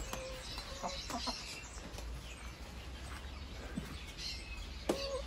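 Laying hens clucking, a scatter of short calls, with a few light clicks and knocks.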